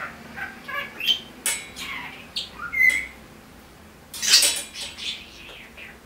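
Budgerigar calling in a run of short chirps and squawks, mixed with a few light clicks. The loudest call comes a little past the middle.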